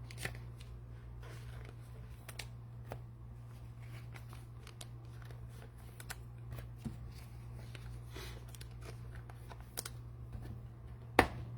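Trading cards and their packaging being handled on a table: scattered light clicks and rustles, with one sharper click near the end, over a steady low hum.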